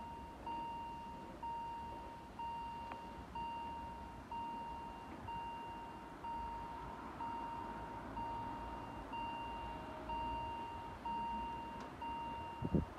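Railway level-crossing warning bell ringing steadily about once a second, each ding starting sharply and fading, warning of an approaching train. A low thump comes just before the end.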